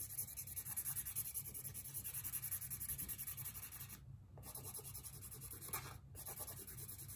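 Red felt-tip marker scribbling quickly back and forth on a small card circle while colouring it in, several strokes a second. It pauses briefly about four seconds in and again near six seconds.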